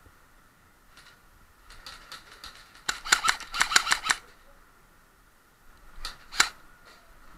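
Airsoft guns firing: a few faint shots, then a rapid string of about ten sharp shots over roughly a second, then two more shots close together near the end.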